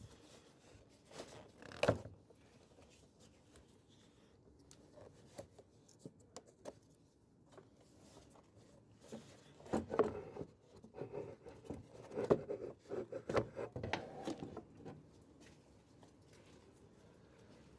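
Intermittent handling noises of hand work on engine parts: scattered clicks, rubs and scrapes, busiest in two clusters in the second half.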